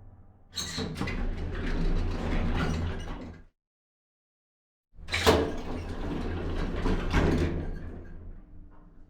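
Old high-rise elevator doors sliding, twice. A rumbling slide starts about half a second in and cuts off abruptly a few seconds later. After a second and a half of dead silence, a second slide begins with a sharp clunk and fades away near the end.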